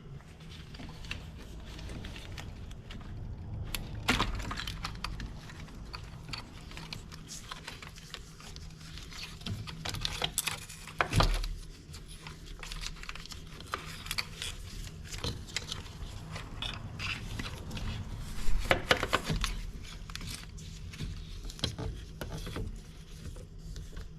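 Metal hand tools clinking and rattling as they are gathered and handled, with scattered irregular clicks and knocks, a few louder clanks, over a steady low hum.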